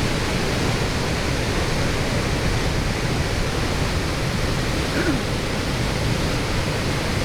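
Steady, unbroken rushing of a large waterfall, Iguazu Falls, with heavy water pouring down continuously.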